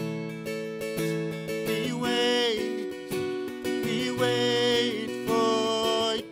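Acoustic guitar strummed in a steady rhythm, with a man singing long held notes over it from about two seconds in.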